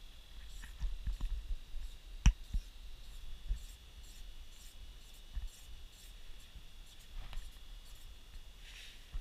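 Quiet handling noises: scattered soft knocks and rubbing, with one sharp click about two seconds in, over a faint steady high-pitched hum.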